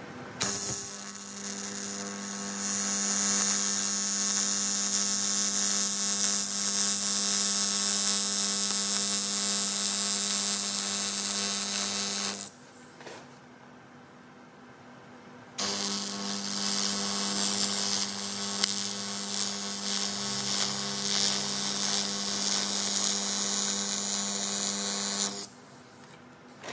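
AC TIG welding arc on aluminium pipe: a steady electric buzz with hiss. It runs for about twelve seconds, stops for about three, then runs again for about ten seconds before cutting off.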